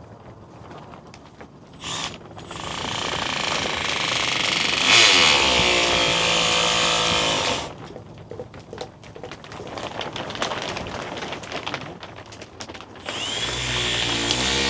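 Power drill running in two long runs, one starting about two seconds in and lasting about five seconds, another starting near the end; its pitch rises as the motor speeds up.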